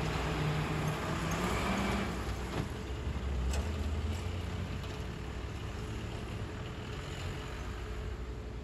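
Diesel engine of heavy road-building machinery running, loudest at first and dying down over the following seconds, with a couple of faint knocks a few seconds in.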